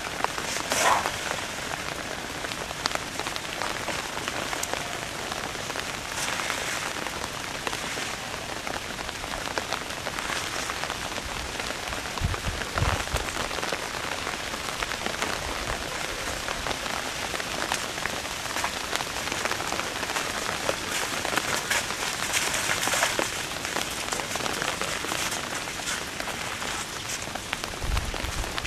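Steady rain pattering, with a brief low thump about twelve seconds in and another near the end.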